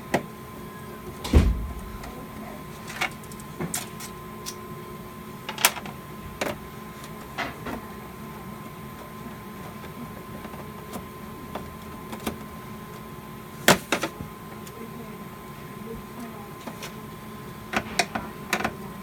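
Scattered clicks, taps and knocks of hands and tools working on a fire alarm control panel, the loudest a thump about a second and a half in, over a faint steady hum.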